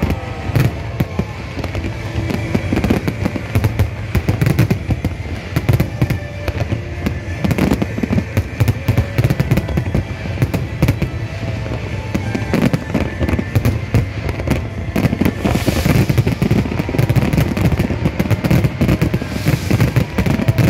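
Fireworks display: a dense, continuous barrage of shells bursting in quick succession, many bangs a second with crackling between them, the crackle growing stronger in the last few seconds.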